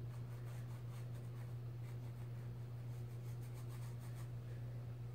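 Thin paintbrush brushing watercolour paint onto a small canvas: a run of short, faint scratchy strokes. A steady low hum runs underneath.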